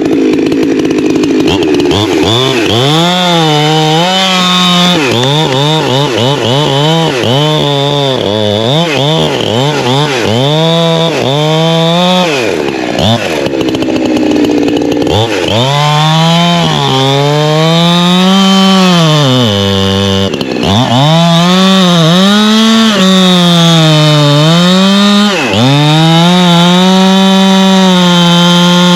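Holzfforma G372XP two-stroke chainsaw cutting up a felled tree. The engine pitch drops each time it loads into the wood and climbs back as it frees: many quick cuts in the first half, then longer, deeper cuts.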